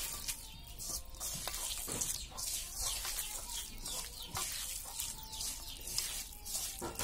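A bare hand squeezing and mixing sliced raw onions and chilies with oil, a wet, crackly squishing in short repeated strokes.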